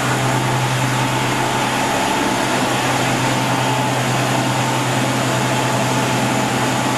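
Homemade Van de Graaff generator running: its electric motor turns the belt over the PVC and leather-covered rollers with a steady low hum, a fainter higher whine and a hiss.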